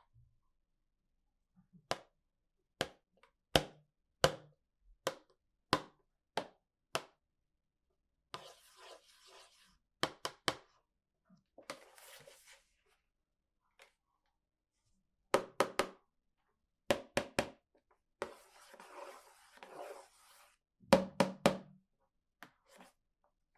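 Hard plastic toy pieces being handled and set down: a run of sharp clicks and taps, about one every second for the first few seconds, then clusters of quick clicks broken by three spells of rustling packaging.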